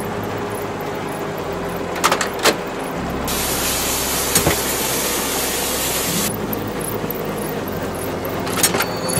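Steady low engine rumble of cartoon tanks, with a hiss during the middle stretch. Several sharp knocks come through: a few about two seconds in, one near the middle and a couple near the end.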